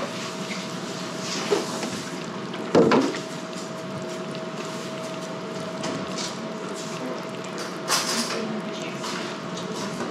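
Kitchen clatter: a sharp knock about three seconds in and a brighter clatter near the end, with small ticks between, over a steady faint hum.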